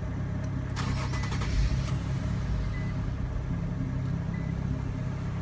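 Infiniti Q50's engine just started by push button and idling steadily, heard from inside the cabin, with a brief rise in noise about a second in. Three faint short beeps sound at even spacing.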